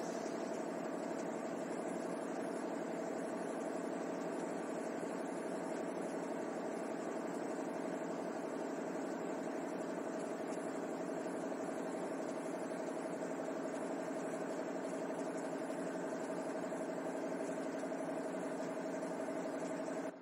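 A steady mechanical hum with a faint held tone, unchanging throughout.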